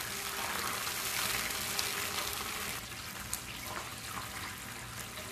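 Caramel and water syrup bubbling and sizzling in a nonstick pan while a silicone spatula stirs it, as the caramelised sugar dissolves back into the water. It eases off a little about halfway through.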